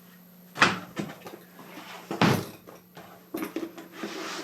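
Two sharp knocks about a second and a half apart, with lighter clicks and shuffling between and after them: leather pieces and tools being handled and set down on a workbench.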